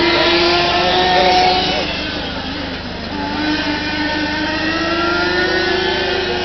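Radio-controlled model race cars' small engines running at high revs around the track, a whining pitch that rises as a car accelerates in the first couple of seconds and again from about halfway.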